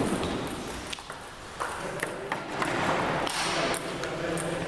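Table tennis rally: the ping-pong ball clicking off the paddles and the table in a quick, irregular series of sharp ticks.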